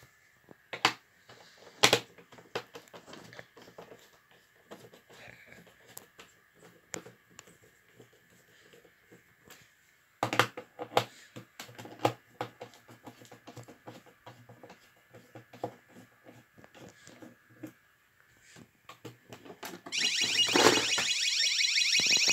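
Clicks, knocks and rattles of plastic alarm parts being handled, over a faint steady high tone. About two seconds before the end an intruder-alarm siren starts, loud and warbling.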